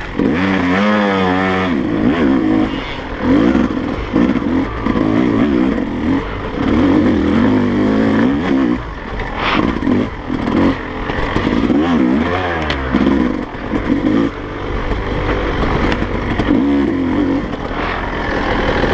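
A 2017 Yamaha YZ250's two-stroke single-cylinder engine, revving up and down over and over as the throttle is opened and shut while the bike is ridden hard, with brief let-offs. Occasional knocks and rattles come from the bike over rough ground, the sharpest about nine and a half seconds in.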